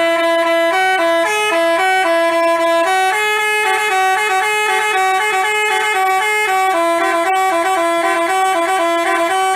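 Basuri telolet bus horn, a multi-tone horn, playing a fast tune of clear stepped notes that change pitch several times a second without a break.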